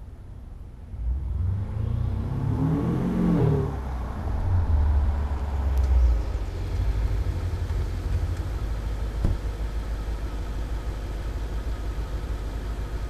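BMW F10 550xi's twin-turbo V8 through a custom 3-inch exhaust, driving up: about a second in the deep exhaust note swells, rises in pitch as it accelerates, then settles into a steady low rumble.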